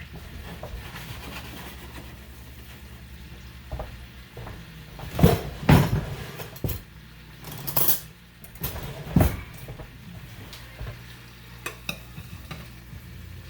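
Monkfish frying in butter in a pan, sizzling steadily, with several loud knocks and clatters of kitchenware in the middle and a few lighter taps near the end.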